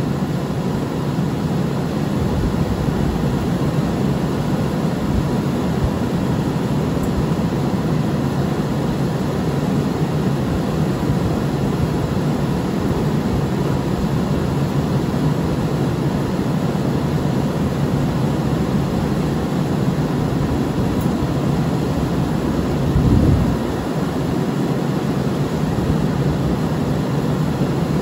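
Gas furnace blower fan running on high speed, a steady rush of air with a faint steady tone, blowing through an overheated heat exchanger to cool it down. One brief louder low rumble late on.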